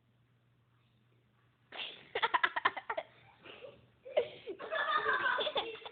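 A person laughing hard in rapid choppy bursts that start about two seconds in, after near quiet with a faint low hum.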